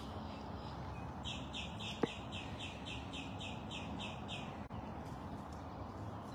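A bird singing a quick run of about a dozen short, high chirps, evenly repeated about three times a second. A single sharp click comes about two seconds in.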